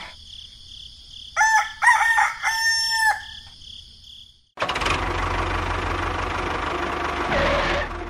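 A rooster crowing once, a drawn-out call of about two seconds. About halfway through, a steady rushing noise with a low hum sets in and runs on.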